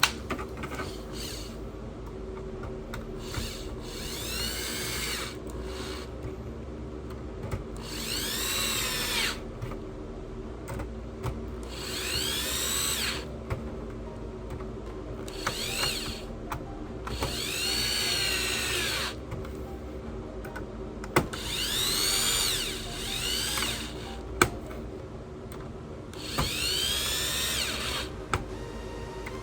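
Electric screwdriver driving screws into a PlayStation 5 during reassembly, in about seven short runs. Each run is a whine that rises and falls, with a sharp click here and there between them.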